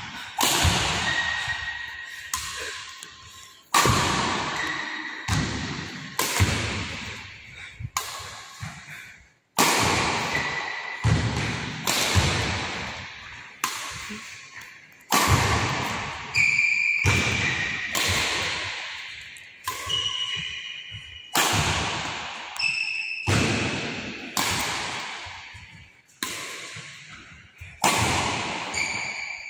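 Badminton rackets striking shuttlecocks in a steady feeding-and-smashing drill: a sharp hit roughly every second, each one echoing on through the large hall.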